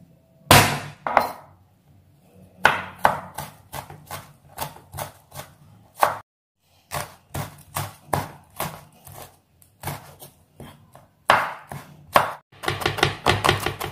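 A couple of heavy thuds as a metal meat mallet crushes garlic and shallots on a wooden cutting board. Then a chef's knife mincing garlic, shallots and red chillies, striking the board about three times a second, with a quicker run of chops near the end.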